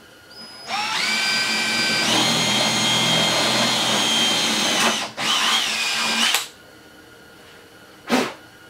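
Power drill with a 3/16-inch bit drilling a hole through a snowmobile's aluminum tunnel: the motor spins up about a second in and runs steadily for about four seconds, breaks off briefly, then runs again for over a second before stopping. A short knock near the end.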